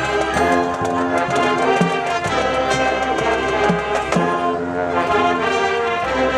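High school marching band playing: brass holding sustained chords over a steady beat from the drums.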